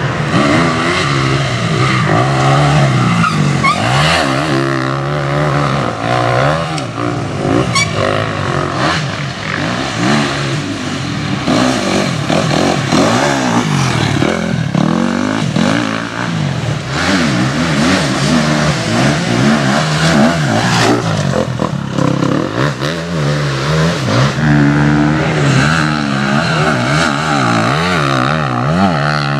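Enduro motorcycle engines revving up and down over and over as riders work the throttle through ruts and sand, one bike after another.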